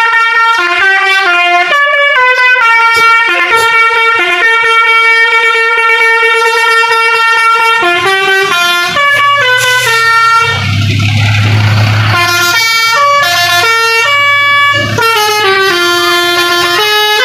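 Indonesian 'telolet' bus horns, multi-tone air horns sounding a tune in quick stepped notes. A low rumble and a hiss join in about nine seconds in and fade out around fifteen seconds.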